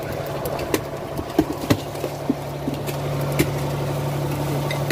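Fishing boat's engine running with a steady low hum, with scattered sharp knocks on the deck as fish and baskets are handled.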